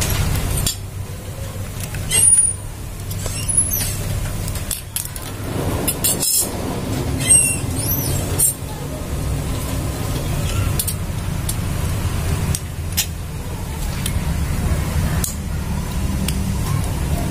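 Small metal copier drive parts (gears, bushing and bracket) being handled by hand: scattered light clinks and knocks over a steady low rumble.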